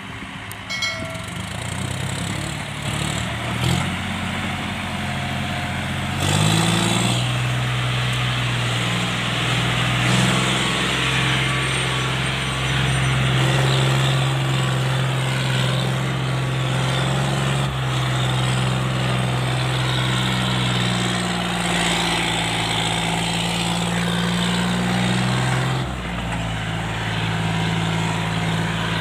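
John Deere 5050 tractor's three-cylinder diesel engine running hard under load, pulling a trolley fully loaded with soil. Its pitch steps up about six seconds in, holds steady, and drops back near the end.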